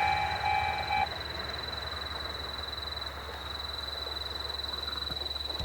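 Japanese railway level crossing's electronic warning bell, an unusual-sounding one, sounding its last few pulsed two-pitch tones and cutting off about a second in as the crossing clears after the train. A steady, thin high-pitched trill carries on afterwards.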